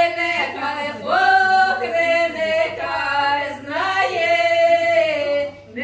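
A group of voices singing a song unaccompanied, in long held notes, with a short pause for breath near the end.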